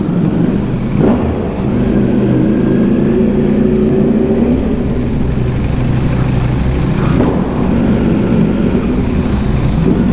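Ducati Panigale V4R's 998 cc V4 engine through an Akrapovic exhaust, heard from the rider's seat as the bike is ridden through the streets, its note rising and falling with the throttle.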